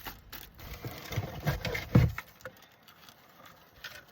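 Rustling and clattering of packaged items being handled and pulled from a cardboard box, with two heavy thumps about one and a half and two seconds in.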